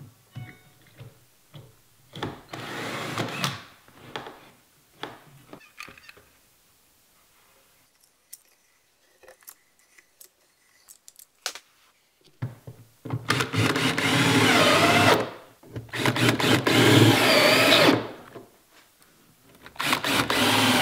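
Cordless drill driving screws into wood, in several runs of one to three seconds each, the motor pitch wavering under load. A quiet stretch in the middle holds only a few faint clicks; the longest and loudest runs come in the second half.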